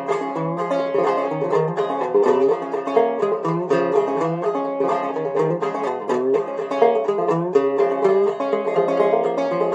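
Banjo music: a tune picked in quick, steady notes.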